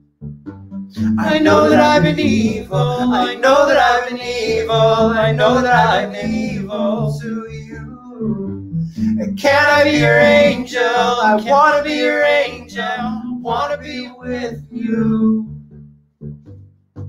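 A singer vocalizing into a handheld microphone over a repeating instrumental backing with a pulsing bass line. The voice stops about a second and a half before the end, and the backing carries on alone.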